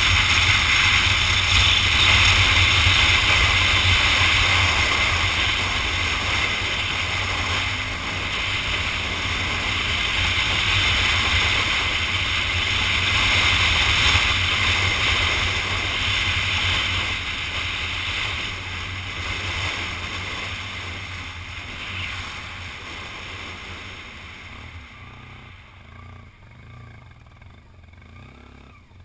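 Wind rushing over the microphone of a moving motorcycle, with its engine and tyre noise underneath. The noise fades over the last ten seconds or so as the motorcycle slows down.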